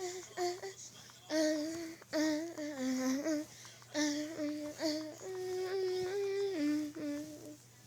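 A voice singing a wordless tune in short held notes, stepping up and down between a few pitches.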